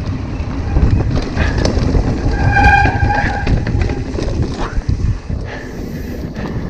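Wind buffeting the microphone over the rumble of mountain-bike tyres on a rocky dirt trail, with frequent rattles and knocks from the bike over rocks. A brief high squeal about two and a half seconds in.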